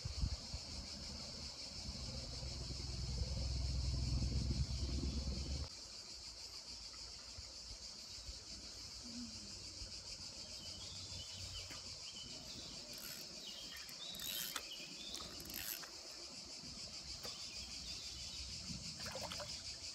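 Steady high-pitched buzzing of summer insects. A heavy low rumble on the microphone fills the first six seconds or so and stops abruptly, and a few short chirps and clicks come past the middle.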